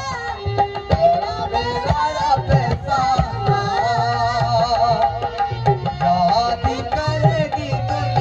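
Rajasthani folk music accompanying a dance: an ornamented, wavering sung melody over a steady hand-drum beat.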